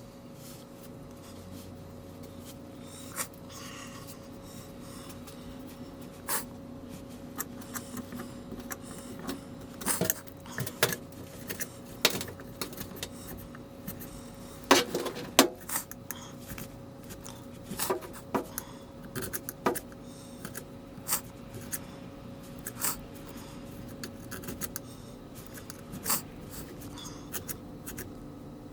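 Scattered light metallic clicks, taps and scrapes of small parts being handled by hand, irregular and busiest in the middle, over a steady low hum.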